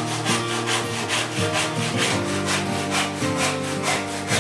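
IRWIN Jack handsaw cutting through a wooden board in quick, even back-and-forth strokes, each stroke a dry rasp of the teeth in the wood. Background music plays underneath.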